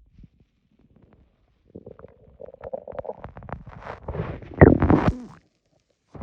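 Human stomach gurgling and rumbling from swallowed air. A run of bubbly gurgles starts a couple of seconds in, with a held squeaky note partway through. It peaks in one loud squelching gurgle, then stops about a second before the end.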